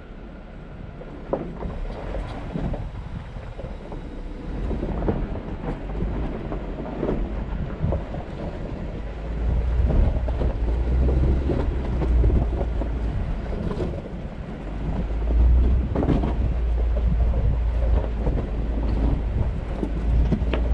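Jeep driving slowly over a rocky trail: a continuous low rumble, stronger from about nine seconds in, with scattered knocks and crunches of the tyres and suspension going over rocks.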